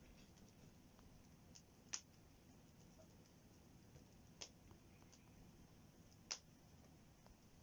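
Wood fire crackling: sharp, scattered pops of burning wood, three loud ones a couple of seconds apart and a few faint ticks between, over a quiet hiss.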